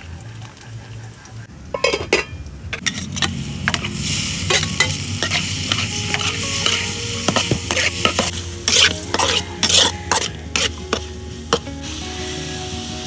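Eel pieces and shredded ginger sizzling in a hot metal wok while a metal spatula stirs them, scraping and clacking against the pan. The sizzle and clatter start about four seconds in and ease off near the end.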